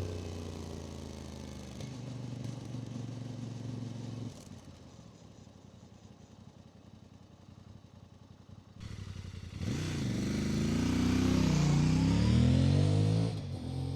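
Voge DS 800 X Rally's parallel-twin engine on its standard exhaust. It runs steadily at first, goes quieter about four seconds in, then from about nine seconds in is loud under acceleration, its pitch rising and falling repeatedly with the revs and gear changes.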